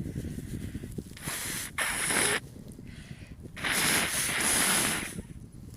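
A person blowing their nose: two long, rushing blows, the first about a second in and the second, longer one about halfway through.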